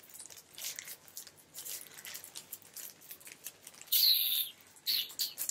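Scissors snipping through a plastic courier mailer bag, with small crinkles and clicks of the plastic throughout. A louder, hissing rasp of the plastic being cut or torn comes about four seconds in, and a shorter one about a second later.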